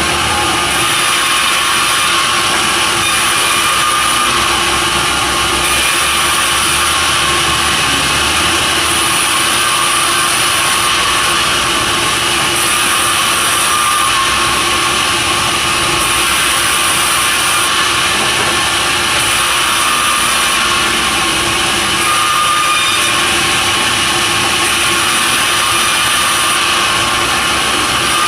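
Sawmill saw running steadily while cutting timber, a loud continuous mechanical noise with a constant hum.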